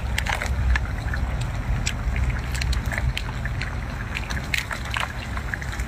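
Cooked king crab shell being cracked and torn apart by hand: a scatter of sharp cracks and crackles over a steady low rumble.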